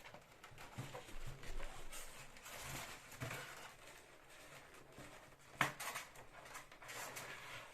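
Plastic parts of an egg incubator's mechanical turning assembly being handled and fitted into place: scattered rustles and light knocks, with one sharp click about five and a half seconds in.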